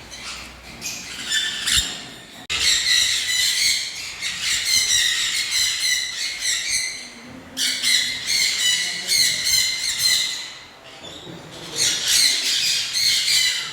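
A flock of small cage birds chattering and squawking together in long, loud spells of several seconds each, with short quieter lulls between.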